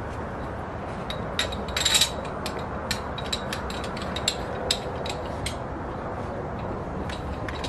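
Scattered light metallic clicks and clinks from a coil-over shock and its fittings being turned and handled by hand, over a steady background hiss.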